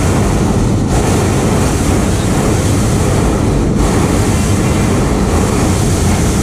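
Hot-air balloon's propane burner firing in a long, loud, steady rushing blast.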